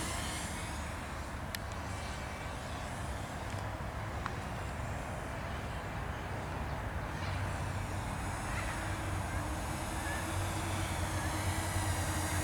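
Walkera F210 racing quadcopter's motors and propellers buzzing faintly at a distance over a low steady rumble, slowly growing louder toward the end.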